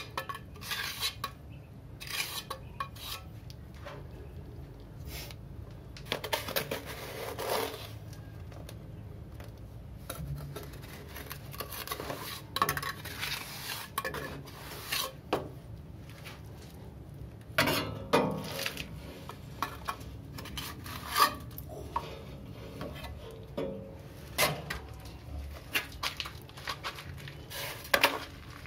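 Steel trowel scraping and tapping wet cement mortar into the gap around a water pipe through a cement wall, in irregular clinks and scrapes. The gap is the unsealed pipe hole that let rainwater run in onto the ceiling.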